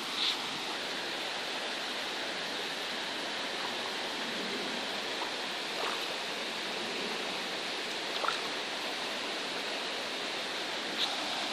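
Shallow stream running with a steady rush of flowing water. Four short, sharper sounds stand out above it, one near the start, two in the middle and one near the end.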